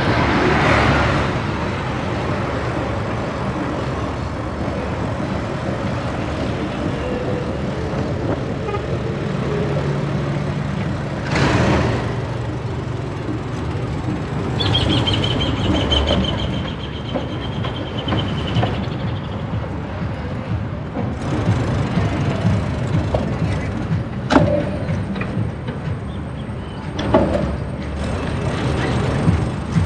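City street traffic heard from a moving bicycle: a steady rumble of passing cars, buses and trucks. A short loud hiss comes about a third of the way in, followed soon after by a high squeal lasting a few seconds.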